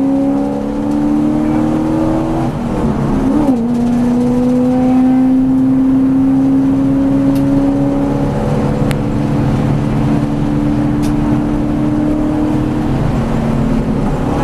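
V8 Supercar's V8 engine at full throttle, heard from inside the cabin, its pitch climbing as the car accelerates, dipping briefly about three seconds in as it shifts up, then climbing again. Near the end the pitch falls as the engine eases off.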